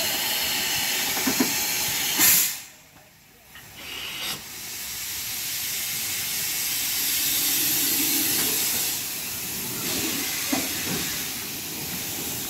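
Steam locomotive hissing steam in a steady rush. About two seconds in, a sharp click is followed by a drop to much quieter for about a second and a half before the hiss returns.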